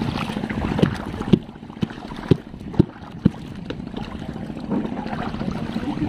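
Footsteps wading through shallow seawater: a run of six sharp thumps about half a second apart, over a steady low rumble of water and boats.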